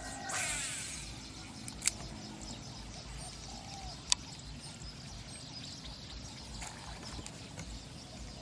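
A baitcasting reel whirring briefly as line pays out on a cast, the whirr falling as the spool slows. Two sharp clicks follow, about two seconds apart, over quiet open-air background with a few faint bird calls.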